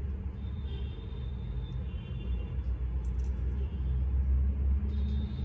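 Steady low rumble and hum with no distinct event, swelling slightly near the end.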